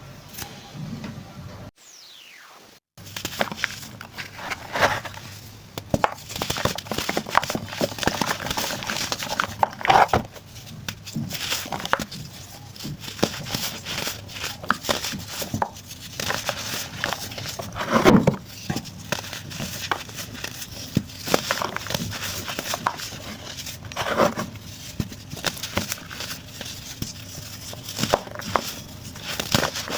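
Pressed baking soda blocks being crushed and crumbled, giving a dense run of irregular crunches and crackles, with a few louder crunches. The crunching begins after a short break about two seconds in.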